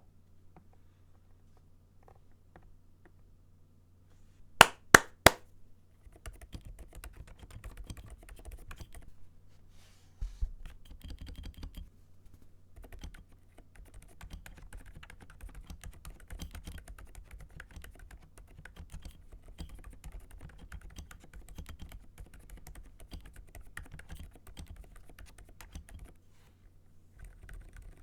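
Typing on a custom mechanical keyboard with Outemu Silent Peach V3 silent switches and PBT MDA keycaps: a dense, soft patter of keystrokes starting about six seconds in, with one louder thump a few seconds later. Just before it, three sharp loud clicks in quick succession.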